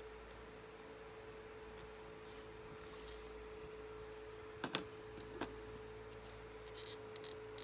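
Quiet handling on a workbench: a quick double click about halfway through, then one lighter tap, as a wooden model wheel rim and metal dividers are handled over a paper plan, over a faint steady hum.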